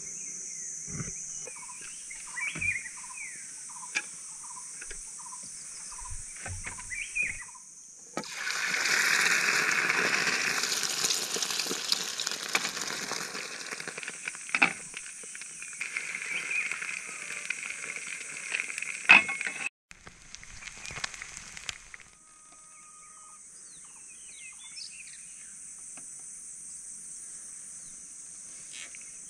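A steady chorus of insects with occasional bird chirps. Partway through, a few seconds of food sizzling in a pan over a wood fire, with a metal spatula clinking against the pan.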